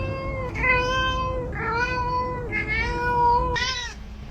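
Domestic cat meowing insistently: a string of long, level meows one right after another, ending with a short, falling meow near the end.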